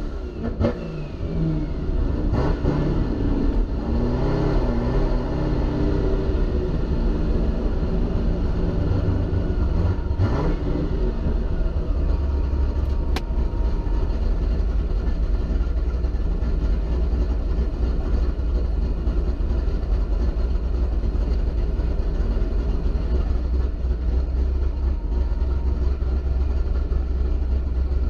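Procharger-supercharged V8 of a C6 Corvette Grand Sport, heard from inside the cabin. Its pitch shifts up and down for roughly the first ten seconds, then it settles into a steady low idle rumble.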